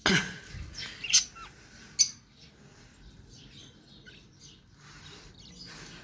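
Budgerigars chirping, with two sharp, loud sounds about one and two seconds in, then softer, scattered chirping.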